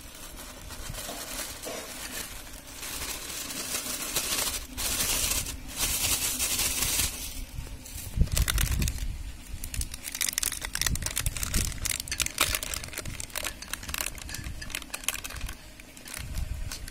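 Plastic bag of cornflour crinkling and rustling as it is shaken out over chicken pieces, the powder pouring out with scattered light ticks and a few low bumps.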